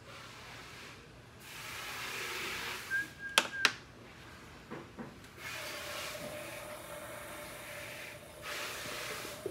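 Clay being worked with hands and tools: rubbing and scraping noise, then two sharp clicks a little past a third of the way in. A steady motor hum sets in about halfway through.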